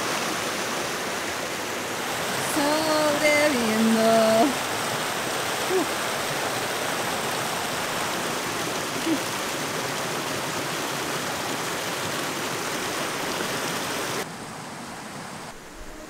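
Shallow mountain river rushing over rocks, a steady hiss of running water. Near the end it cuts down abruptly to a fainter hiss.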